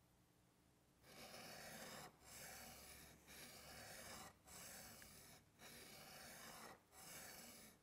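A steel bench chisel's bevel rubbed back and forth on a wet diamond sharpening plate: about six faint rasping strokes, roughly one a second, starting about a second in. It is honing the bevel.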